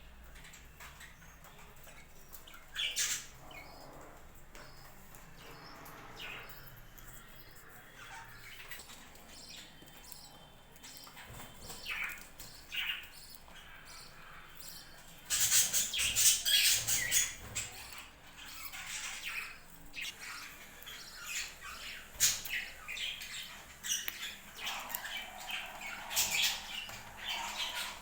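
Budgerigars chirping and squawking in short, scattered calls, with a louder burst of many birds calling at once a little past halfway.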